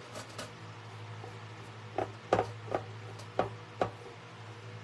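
Paintbrush dabbing and working decoupage glue over paper on a metal tray: about five short soft taps in the second half, over a steady low hum.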